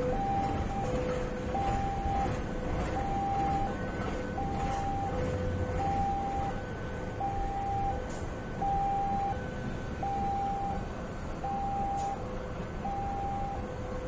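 A two-tone warning signal alternating steadily between a low and a high note, each held for under a second, over the rumble of the train running.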